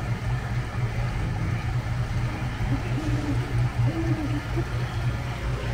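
Steady low rumble of the dark-ride vehicle moving through the scene, with a few soft, slow gliding notes of background music about three and four seconds in.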